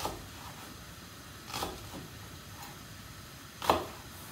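Kitchen knife cutting shallot on a wooden cutting board: a few separate knocks of the blade on the board, one every second or two, the loudest near the end, over a steady low hiss.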